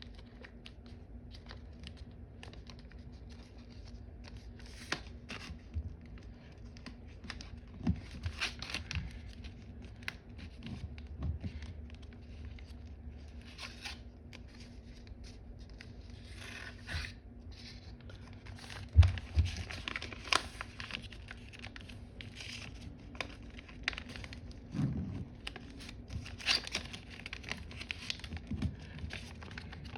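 Paper being folded and creased by hand: intermittent rustling and crinkling, with a few light taps on the table, the loudest about 19 seconds in.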